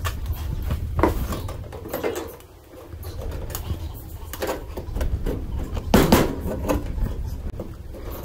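Aluminum angle framing and clamps being handled and set in place: scattered knocks and scrapes of metal, the loudest about six seconds in, over a steady low hum.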